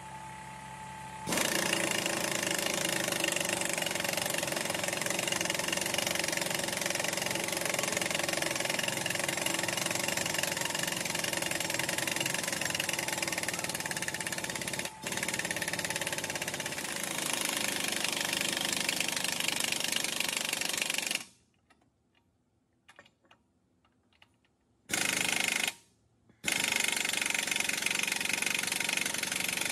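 Air impact wrench hammering on a long extension against a walking-beam end bushing bolt. It starts about a second in and runs for about twenty seconds with a brief break. After a pause it gives a short burst, then runs again near the end.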